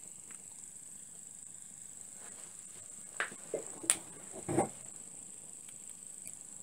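Small homemade copper-boiler steam engines running with a steady high-pitched hiss. A few sharp taps and a heavier knock and clatter come a little past the middle, as a hand handles the engines.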